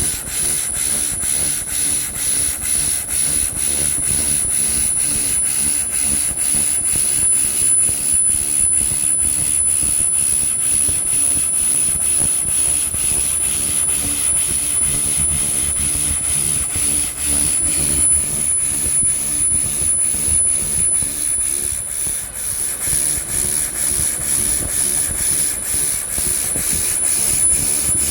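300 W pulsed laser cleaner running its spiral scan pattern over an old school bell, ablating rust and grime from the metal. It gives a steady high-pitched whine over a rapid, evenly pulsing hiss.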